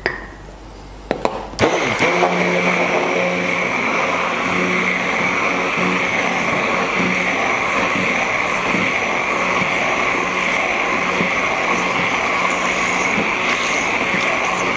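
A couple of light knocks, then a handheld stick blender is switched on about a second and a half in and runs at a steady speed with its head sunk in a jar of mayonnaise, re-emulsifying split mayonnaise with a little added water.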